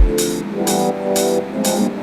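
Background electronic dance music. One kick-drum hit opens it, then the kick drops out and sustained synth chords carry on over a regular hi-hat-like hiss about twice a second.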